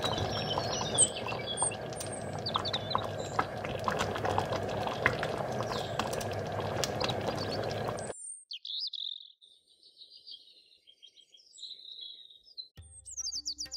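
Thick tamarind chutney simmering in a pot: a steady bubbling with frequent small pops, with birds chirping in the background. About eight seconds in, the bubbling cuts off abruptly, leaving only the birdsong, and music with a drum starts near the end.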